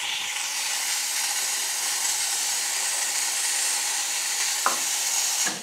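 Espresso machine steam wand blowing steam into a grinder hopper with a steady hiss that cuts off near the end. The steam is being used to clean coffee oils out of the hopper.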